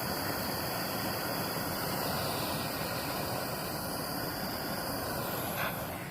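Steady hissing rush from a gas torch flame heating solder, with a click near the end as the noise cuts off.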